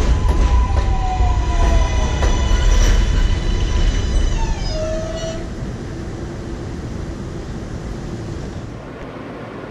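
An R143 New York City subway train runs by and pulls away. Its wheels make a loud rumble, and the electric motor whine falls in pitch. About five seconds in, the train sound dies away to a steady background hum.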